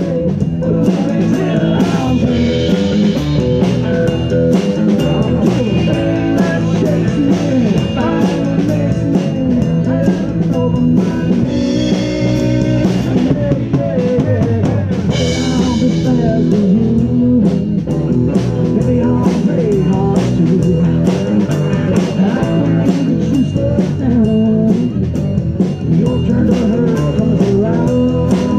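Live blues-rock trio playing an instrumental passage with no vocals: electric guitar with bending notes over electric bass and a drum kit keeping a steady beat.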